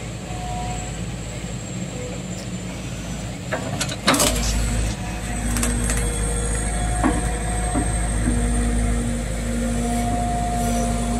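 Excavator diesel engine running while its hydraulics work a log grapple, with a sharp clank about four seconds in as the grapple meets the logs. After the clank the engine works harder, with a steady hydraulic whine over it.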